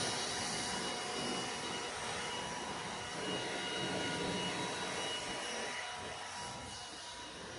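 Wood-Mizer portable bandsaw mill running, its engine-driven 747-profile band blade cutting through a cedar log with a steady engine drone and a thin whine. It gets a little quieter near the end.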